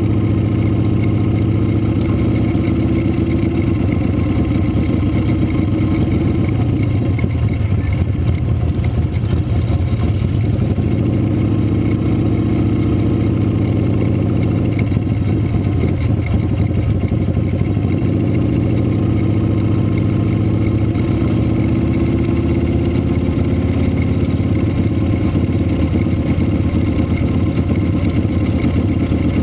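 Motorcycle engine running at a slow, steady parade pace, its pitch drifting gently up and down with small throttle changes.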